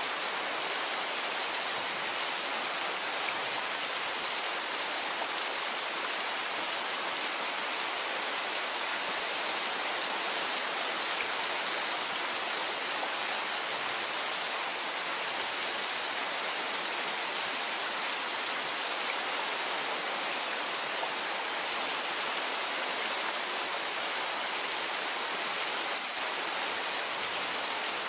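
Rain falling steadily, a dense even hiss that holds at one level throughout.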